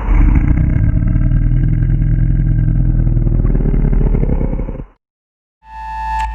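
Monster growl sound effect made from a pitched-down, compressed and reversed 'cow noise' sample: a low, rough growl lasting about five seconds that rises in pitch near the end and cuts off suddenly. A short chime with a deep low note starts near the end.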